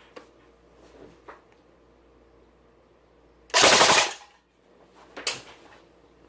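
Airsoft M4A1 rifle firing a short full-auto burst of about half a second, followed about a second later by a single sharp click, with a few faint handling clicks before.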